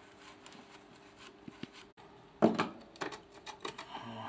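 Metal engine parts clinking and knocking as a connecting-rod cap is worked off the crankshaft of a Mercedes M102 engine: one loud knock about halfway through, then several lighter, irregular clinks.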